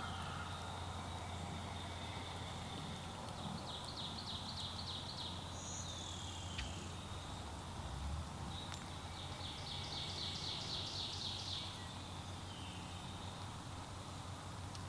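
Songbirds singing: short downslurred whistles, and twice a run of quick repeated high notes, about four seconds in and again near ten seconds, over a low steady hum.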